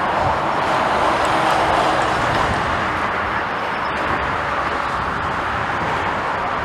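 Jet engine roar of a Boeing 787-9 at go-around thrust, a steady rushing noise that cuts off suddenly at the end.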